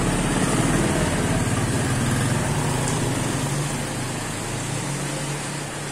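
Small motor scooter's engine running as it passes close by on a wet street, loudest in the first couple of seconds, then fading as it moves away, over a steady hiss.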